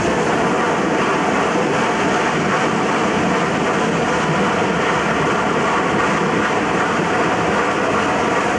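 Railway train running on the track: a steady, even rumble and rush of wheel noise with no break.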